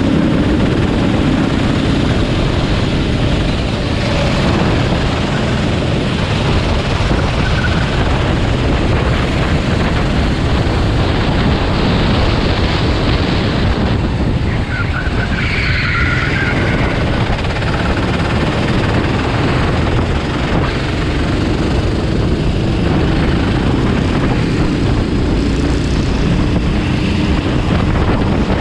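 Engines of racing vehicles at a race start, a loud, steady wash of engine and tyre noise, with a higher engine whine coming through about halfway.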